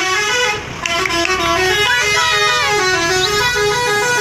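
Telolet musical horn on an Indonesian bus playing its tune: a quick run of notes stepping up and down, with a short break just under a second in.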